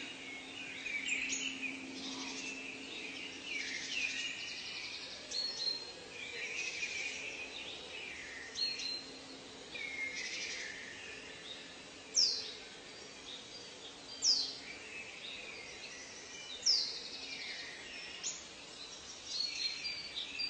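Several birds calling and singing at once: chirps and trills overlapping, with three loud, sharp down-slurred whistles about two seconds apart in the second half.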